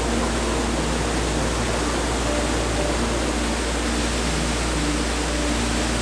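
Steady rush of a waterfall: water pouring over rock into a rocky stream, an even hiss at a constant level.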